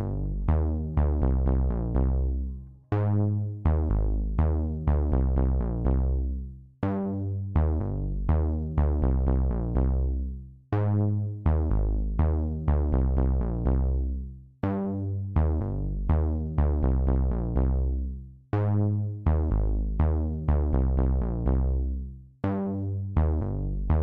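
Electronic background music: synthesizer notes over a steady drum-machine beat, repeating in phrases of about four seconds.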